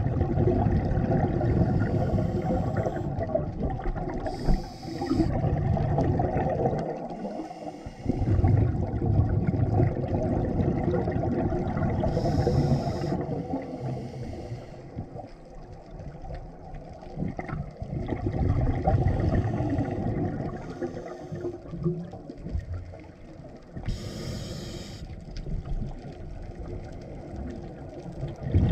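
A scuba diver breathing through a regulator, heard underwater: long rumbling, gurgling rushes of exhaled bubbles, broken a few times by a short hiss of an inhalation.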